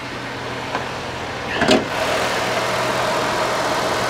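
Small car engine idling steadily. A clunk comes about one and a half seconds in, as the hood goes up, and the idle is louder and clearer after it.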